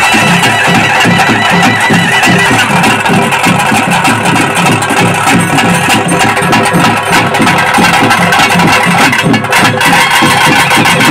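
Traditional ritual band music: a wind instrument plays a held, reedy melody over fast, steady drumming.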